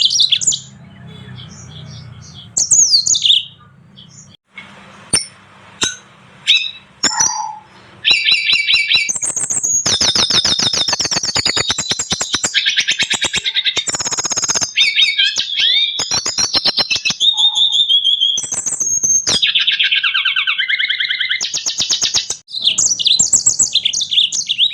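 Small finches singing: scattered chirps and short phrases at first, then, about eight seconds in, a long unbroken run of rapid high trills and twittering with whistled notes.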